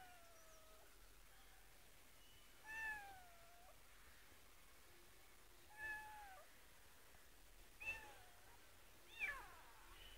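Kitten stuck up a palm tree, meowing: four thin meows a couple of seconds apart, mostly falling in pitch.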